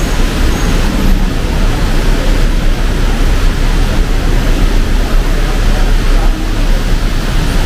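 Heavy rain falling in a steady, dense hiss, with road traffic rumbling underneath.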